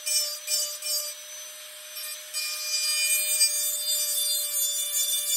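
Rotary carving handpiece running with a steady whine while its small burr grinds wood along the edge of a carved bird's tail feather; the scratchy grinding rises and falls as the bit is moved along.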